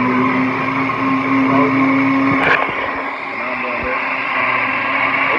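Countertop blender running steadily, blending a smoothie of liquid and powder. A short click comes about two and a half seconds in, after which the motor's tone drops a little.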